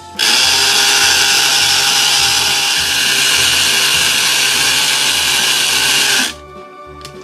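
A loud, steady, drill-like whirring hiss that starts abruptly and cuts off after about six seconds, over background music with a steady beat.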